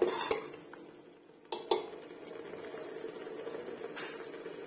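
Steel ladle stirring mint paste in a pressure cooker pot, clinking against the side a few times in the first two seconds. After that the paste fries in ghee with a low, steady sizzle, cooking down until the oil comes up.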